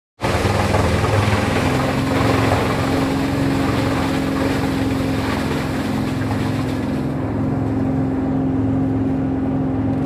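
Heinola 1310 ES mobile wood chipper running under load: a steady engine drone under the loud rushing noise of logs being chipped and chips blowing out of the spout. About seven seconds in the chipping noise thins out, leaving mainly the engine running.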